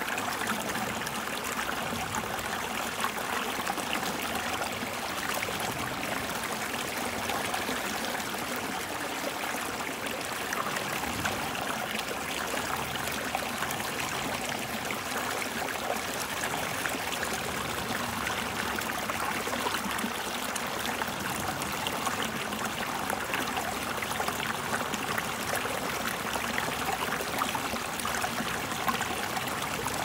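A small stream spilling over a rock ledge into a pool: steady rushing and splashing water.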